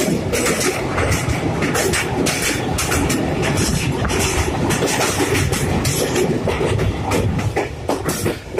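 Passenger train running at speed, heard from an open carriage window: a steady rumble with wheels clattering over the rails as it crosses a steel truss bridge.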